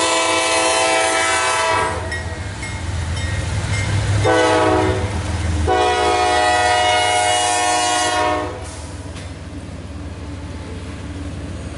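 Freight locomotive's multi-chime air horn sounding a long blast, then a short one running straight into another long one, the pattern of a grade-crossing warning. Under the horn and after it, the train's steady low rumble goes on.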